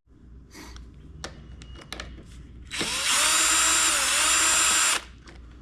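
A few light handling clicks, then a cordless power drill/driver runs for about two seconds, its motor whine dipping and rising, as it backs out a fastener holding the mower's air cleaner.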